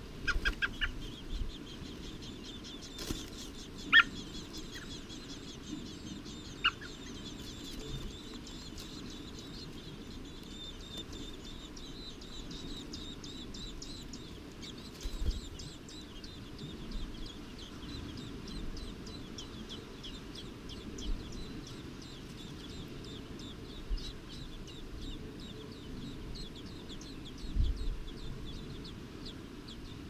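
American robin nestlings begging for food: a fast, steady run of high, thin peeps while the parent feeds them. A sharp tick comes about four seconds in and a fainter one near seven seconds.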